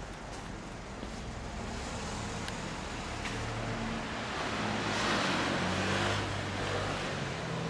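Road traffic: a vehicle passing on the road, its tyre and engine noise building to a peak about five to six seconds in and then easing.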